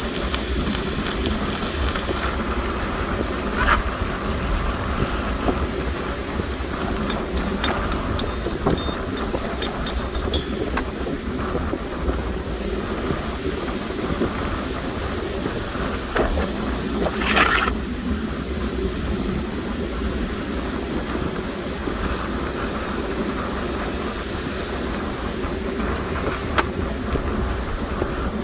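Stick (shielded metal arc) welding on a tank: the electrode's arc crackles and sputters steadily as a bead is run, with a few sharper pops now and then.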